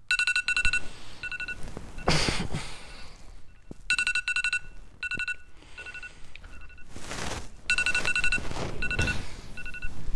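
Electronic alarm beeping: a quick run of beeps followed by slower single beeps, the pattern starting suddenly and repeating about every four seconds, a wake-up alarm. Bedding rustles in between as the sleeper stirs.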